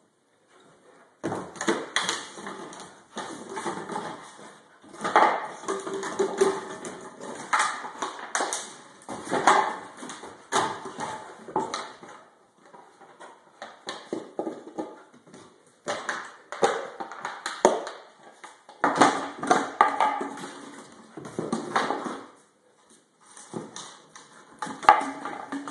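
Plastic bottle crackling and clattering in irregular bursts as a Rottweiler puppy chews it and pushes it across a hardwood floor, with short pauses between bursts.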